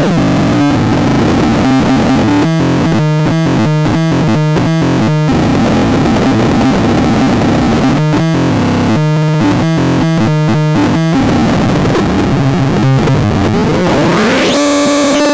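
DIY synthesizer making harsh, noisy buzzing tones. Twice these break into fast, choppy runs of stepped notes, and near the end a pitch sweep rises and falls.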